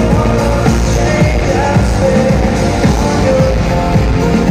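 Live pop-rock band playing in an arena, with drums, guitars and keyboards under a lead singer's voice.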